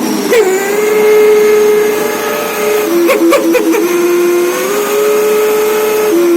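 A loud, sustained whistling tone that holds one pitch and then steps between a lower and a slightly higher pitch, with a brief warbling stutter about three seconds in.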